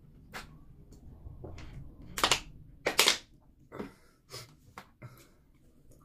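A plastic water bottle handled after a drink: a run of sharp crackles and clicks, loudest twice a little over two and three seconds in, then a few softer clicks.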